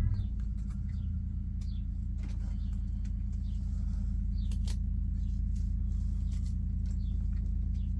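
A motor running with a steady low hum, with a few light clicks over it.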